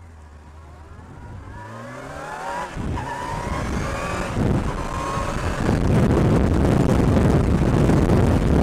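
Motorcycle engine accelerating through the gears: its pitch rises, drops back at each of two upshifts, and rises again. Wind noise on the bike-mounted microphone builds up loud as the speed grows.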